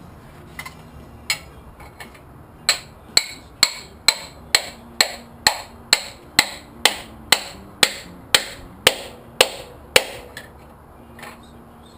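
Hammer blows driving a broken piston out of a 1971 Pontiac 455 V8's cylinder bore. After a couple of light taps, a steady run of about sixteen sharp strikes, roughly two a second, each with a short metallic ring, stops about ten seconds in.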